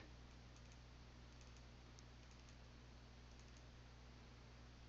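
Near silence: a faint steady hum with a few faint, scattered computer mouse clicks.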